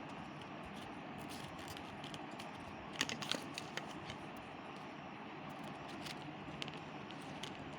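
Small scattered clicks and taps over a steady background hiss, with a short, louder cluster of clicks about three seconds in.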